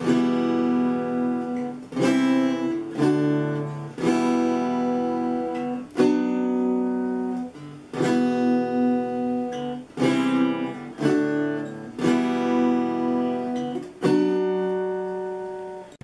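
Acoustic guitar strummed in plain chords, a new chord struck about every two seconds and left to ring, with a few quicker strums in between.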